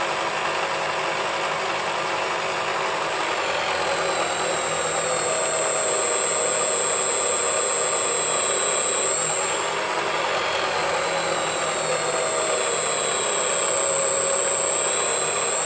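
Turnigy Aerodrive SK3 brushless outrunner motor, driven by an RC speed controller, running the mini lathe spindle through its gears: a steady whir with a constant high whine. The pitch dips slightly now and then as the chuck is loaded by hand.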